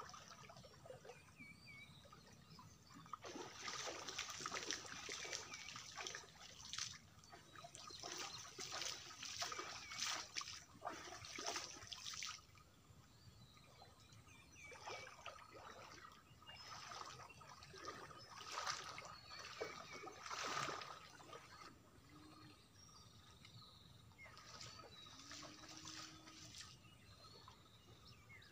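Pond water splashing and sloshing in irregular bursts as a man wades waist-deep and churns the water with his hands. The bursts last several seconds at a time with quieter gaps between.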